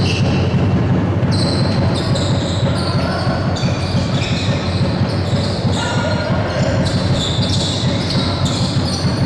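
Basketball game on a hardwood court: the ball being dribbled and sneakers squeaking on the floor, with short high squeaks coming and going. Under it runs a steady low rumble.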